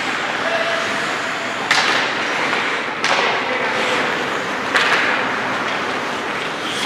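Ice hockey play in an indoor rink: steady scraping and hissing of skates on the ice, with three sharp knocks of stick, puck or boards, about two seconds in, at three seconds and near five seconds, each ringing briefly in the arena.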